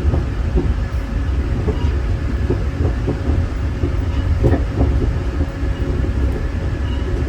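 Steady low rumble of a GO Transit bilevel passenger train running on the rails, heard from inside the coach, with a few faint clicks and knocks.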